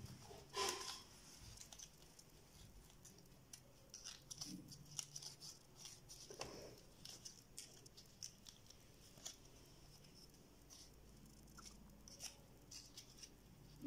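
Faint rustling and crinkling of paper being folded and handled by hand, with scattered soft clicks; the loudest rustle comes just under a second in.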